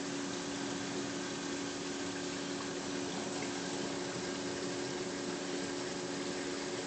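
Aquarium water pump running: a steady hiss of moving water with an even low hum.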